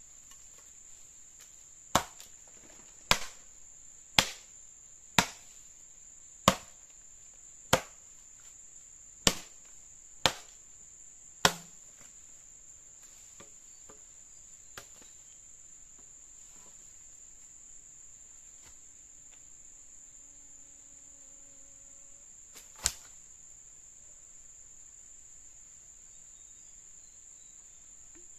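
Steady high-pitched insect drone, with nine sharp chopping blows on wood about a second apart in the first half and one more strike later on.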